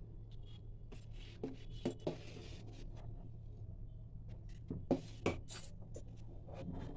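Metal spoon stirring thick boiled sago pearls in a steel pan, with a few scattered scrapes and clinks against the pan over a low steady hum.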